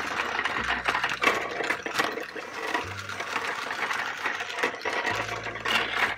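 Small battery-powered motors of Tonka Climbovers toy trucks whirring steadily as they drive, with plastic wheels clicking and clattering over ridged plastic track.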